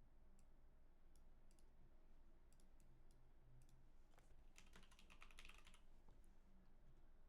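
Faint clicking at a computer: scattered single clicks, then a quick run of about a dozen key or button taps between four and a half and six seconds in.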